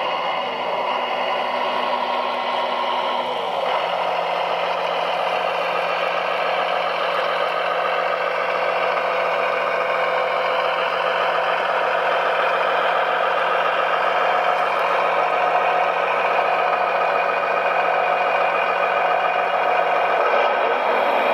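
Radio-controlled construction models running: a steady, loud mix of motor whine and engine-like hum, with a low steady tone joining about four seconds in and dropping out near the end.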